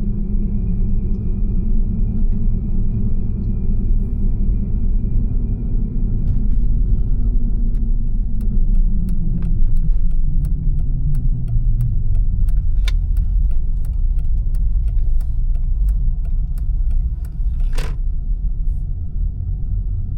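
Motor vehicle running with a steady low rumble; its engine note falls about nine seconds in. Irregular clicks and rattles come through the second half, with one louder knock near the end.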